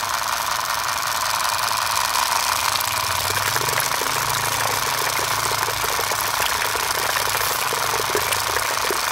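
Miniature Dongfeng-style diesel engine model running steadily with a rapid knocking rattle and a low hum, driving a belt-driven mini water pump. Water from the pump outlet splashes into a puddle.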